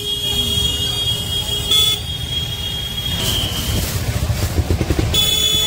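Street traffic with a vehicle horn blowing one long steady note for about three seconds, then a short honk near the end, over the low rumble of the moving rickshaw.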